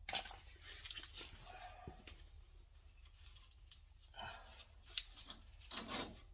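Quiet hand-handling of a winch's steel hook and yellow pull strap at the cable end: light metal clicks and rubbing, with a sharp click just after the start and another about five seconds in.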